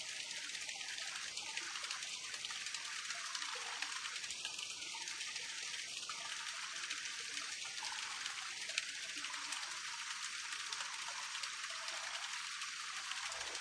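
Running water: a steady rushing hiss with no pitch to it.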